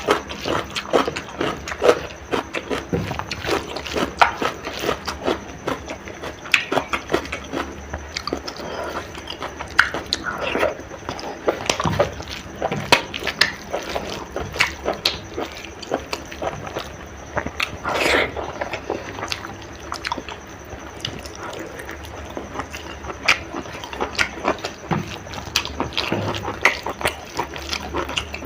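Close-miked eating of chicken curry with rice: chewing, wet mouth clicks and smacks coming irregularly, several a second.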